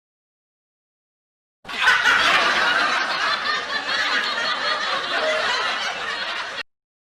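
A laughter sound effect starting about two seconds in and cutting off abruptly near the end.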